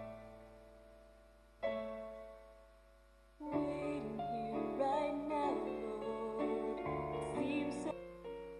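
Slow piano music: single chords struck and left to die away, then a fuller, busier passage from about three and a half seconds in that thins out near the end.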